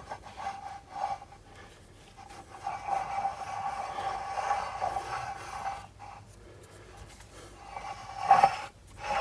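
Cast-iron lathe saddle being rubbed back and forth on a surface plate coated with marking blue, a dry metal-on-plate rubbing with a faint squeak. It is a spotting test of how well the saddle's ways bear. A few short strokes come first, then a long rub in the middle, and a louder stroke near the end.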